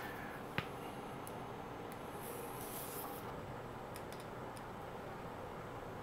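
Faint handling of a metal PCI slot bracket and its cables: one light click about half a second in, then a few faint ticks over low, steady room hiss.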